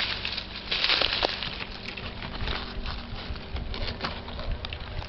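Dry leaves and twigs rustling and crackling close to the microphone, with scattered small clicks and a louder stretch of rustling about a second in. A faint steady low hum sits underneath.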